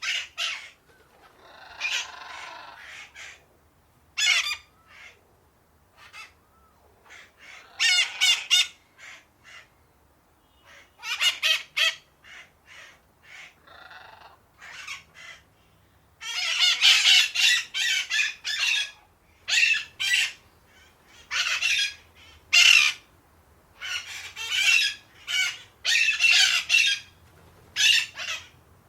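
A group of parakeets squawking and chattering in short bursts, turning into dense, near-continuous calling for much of the second half.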